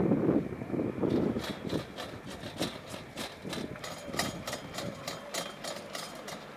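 Chairlift ride: a low rumble that dies down over the first second or so, then a run of light, irregular clicking and rattling, several clicks a second, from the chair and its cable.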